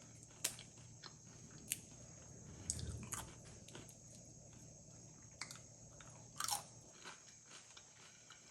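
Someone chewing and crunching tortilla-chip nachos close to the microphone, with sharp crunches every second or two between softer chewing.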